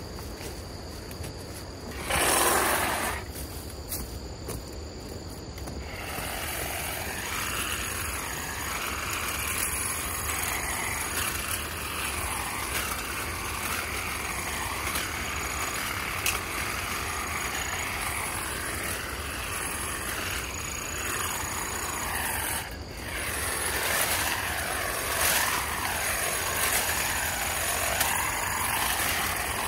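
Power trimmer running as it cuts through vines and brush on an overgrown path. A short loud burst of noise comes about two seconds in.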